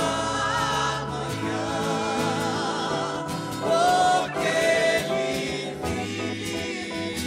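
Mixed gospel vocal group, men's and women's voices, singing together with vibrato, with a loud held note about four seconds in.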